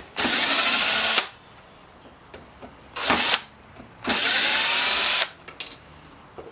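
Power drill running in three bursts, the middle one short, each opening with a rising whine as the motor spins up: backing out the screws that hold an electric scooter's motor.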